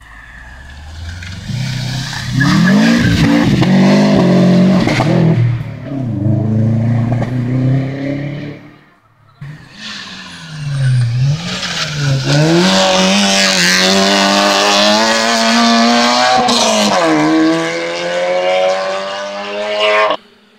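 Rally car engines revving hard through a hairpin: one car brakes and changes gear, then the sound breaks off suddenly. A second car follows, its engine dipping at gear changes and then rising steadily in pitch under hard acceleration, before it cuts off suddenly near the end.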